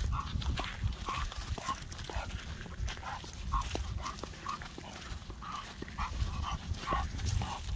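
A dog making short, repeated sounds, about two a second, over a low rumble.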